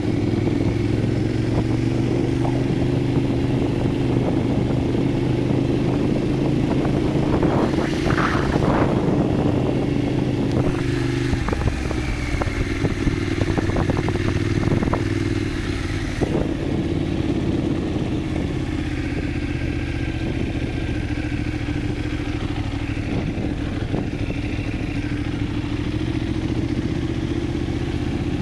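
Motorcycle engine running at a steady cruising speed while riding over rough, cracked asphalt, with a short run of clattering knocks partway through.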